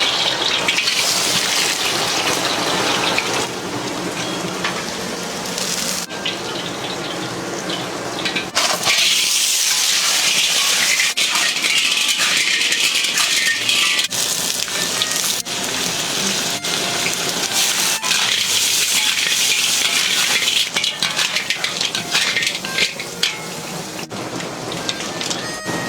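Steady hiss of falling or splashing water. It breaks off and starts again abruptly several times.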